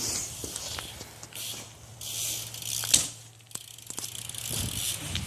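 BMX bike rolling on pavement: tyre hiss and a ticking freewheel hub, with a sharp knock about three seconds in.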